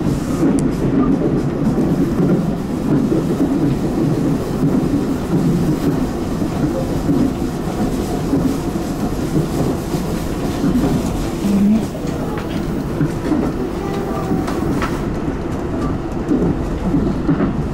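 Tobu 10030 series electric commuter train running along the line: a steady rumble of wheels on rail and running gear, heard from inside the leading car, with a faint squeal of wheels on rail a little past the middle.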